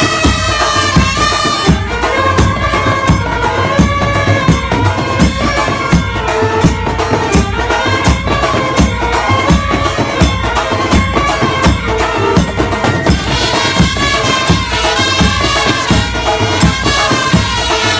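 Background music with a steady drum beat and a melody.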